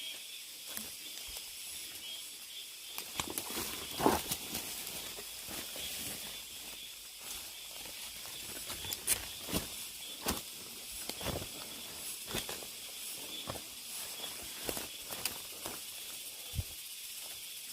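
Cicadas singing in a steady, high, hissing chorus, with a person's footsteps falling at an uneven walking pace; one step about four seconds in is louder than the rest.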